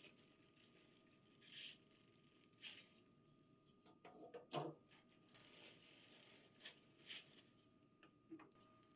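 Faint, scattered rustling and crinkling of packaging as the printer tray's accessories are unpacked, in short bursts with pauses between.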